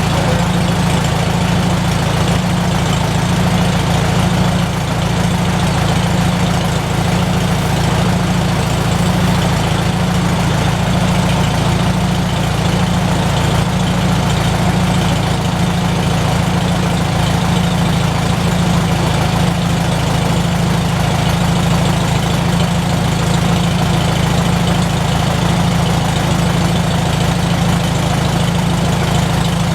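McCormick-Deering W-4 tractor's four-cylinder engine idling steadily after a spring crank start, with an even, unchanging pulse of firing strokes.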